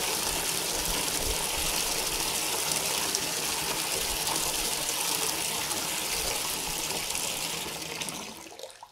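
Water gushing steadily from a bathroom tap into a plastic bucket, filling it; near the end the flow dies away and stops.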